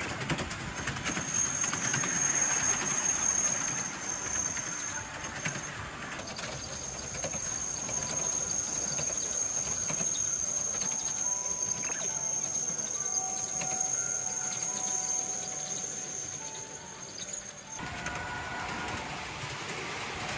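Ride-on miniature park train running along its narrow track, with a steady high whine over the running noise.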